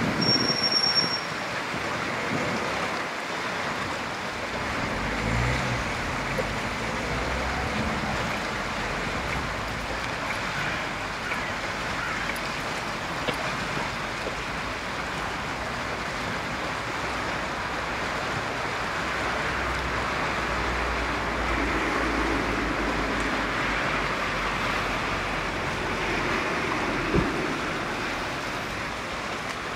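Steady rushing of the Bruche river running high and fast past a sandstone bridge pier, with a low rumble of road traffic underneath. A short high beep sounds right at the start.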